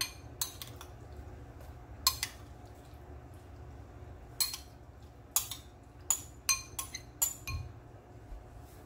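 Metal spoon clinking against a glass bowl and a foil baking pan as ground beef is spooned out and spread: about a dozen short, sharp clinks at irregular intervals, some with a brief ring.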